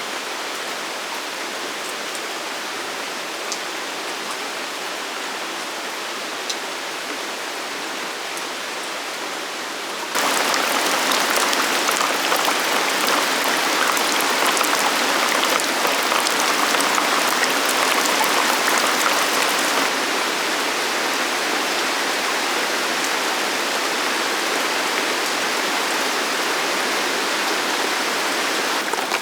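Rain falling steadily with scattered drop ticks; it gets suddenly louder about ten seconds in and eases back a little about ten seconds later.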